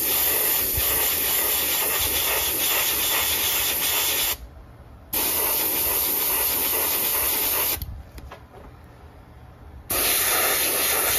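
Airbrush spraying paint: a steady hiss of air in three spells, the first about four seconds long, the second under three, and the third starting near the end. Each spell starts and stops sharply as the trigger is pressed and let go.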